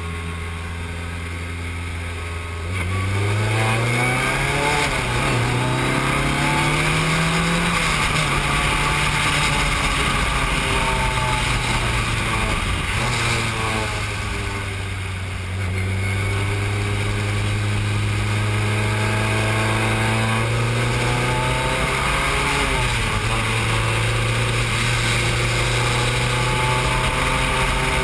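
Formula 3 single-seater's engine heard from the cockpit, accelerating hard out of a corner about three seconds in, its pitch climbing and dropping back at each upshift. It eases off briefly near the middle, then pulls through the gears again.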